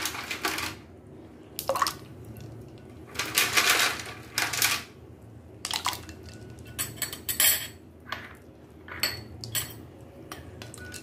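Ice cubes clinking against a glass bowl as they go into spiced mint-coriander water and are stirred through it, in scattered irregular clinks and short splashy bursts.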